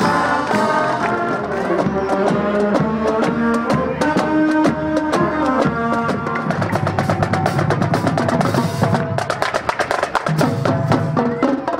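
Marching band playing: a brass melody over drums, with the drum strokes getting busier and more prominent about halfway through.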